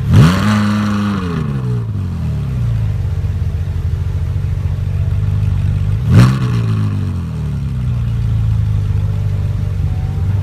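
Ferrari 458 Speciale's 4.5-litre V8 revved twice while standing: right at the start a sharp rev held for about a second before falling back, then a shorter blip about six seconds in, idling steadily in between.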